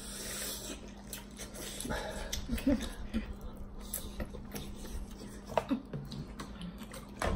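Quiet eating sounds: plastic forks clicking against noodle bowls, with a few short high whimpers.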